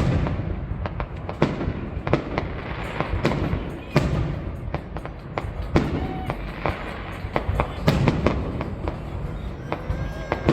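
Aerial fireworks bursting high overhead: a rapid, irregular string of sharp bangs over a continuous low rumble and crackle.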